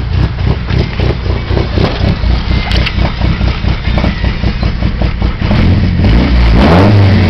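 2006 Chevrolet Cobalt's four-cylinder Ecotec engine with stage 2 camshafts idling, heard from inside the cabin, with an uneven, choppy pulse typical of aggressive cams. About five seconds in the engine note turns louder and steadier.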